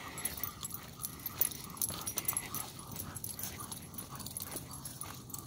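Several leashed dogs walking on a dirt trail, panting, with many small clicks and jingles from their gear and footfalls.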